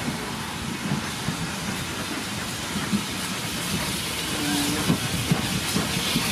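Small steam tank locomotive pulling coaches into a station, its steam hissing over the rumble of the train on the rails. A short steady tone sounds a little after four seconds in.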